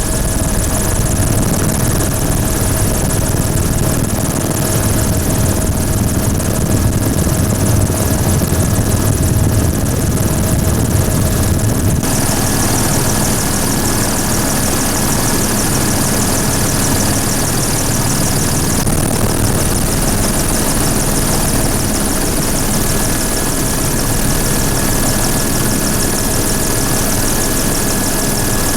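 Helicopter turbine and rotor noise heard from on board the aircraft: a steady, loud drone with constant whining tones over a low rumble. The high hiss gets louder about twelve seconds in.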